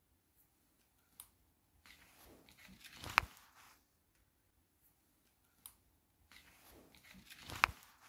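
Ceiling-fan rotor, rewound as a generator, being spun by hand with a crank. Twice a whirring rub builds for about two seconds and ends in a sharp click, each time after a lighter click.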